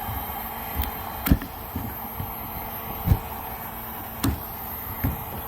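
Irregular sharp snaps and knocks, about six in all, as old unbonded layers of melted-on plastic patching are pulled and pried off a plastic kayak hull, over a steady background hum. The layers come away easily because they were melted onto cold plastic and never fused.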